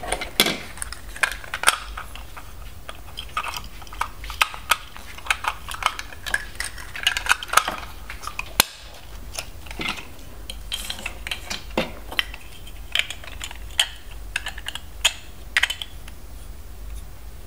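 Hard plastic LEGO DUPLO pieces clicking and clattering irregularly as hands handle and fit together the Chug truck toy.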